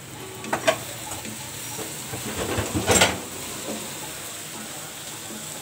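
Chopped vegetables frying in oil in a non-stick kadhai, stirred with a wooden spoon: a steady sizzle with a few knocks of the spoon against the pan, the loudest about three seconds in.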